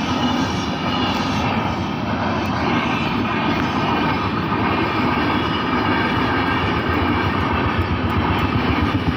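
Indian train running past, a loud steady rumble with many even tones.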